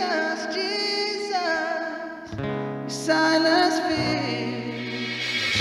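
Live worship band playing a gospel song: voices singing long held notes over guitar-led accompaniment.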